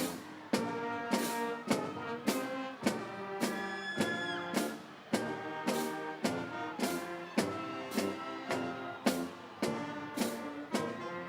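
Instrumental music with brass over a steady beat: sustained brass chords, with a percussive hit a little under twice a second.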